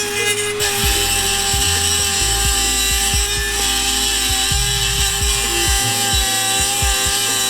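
Dremel 4000 rotary tool running steadily with a steady high whine as a sanding pad grinds down the cracked, rattling ends of an exhaust so they stop tapping together.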